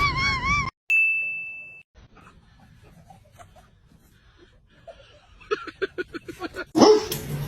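A warbling high-pitched sound that cuts off, then a single bell-like ding that fades out over about a second. Near the end comes a quick run of short pitched pulses, about eight a second.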